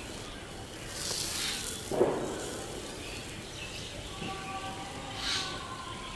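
A hissing rush, then a single sudden pop about two seconds in: a neck being cracked by hand.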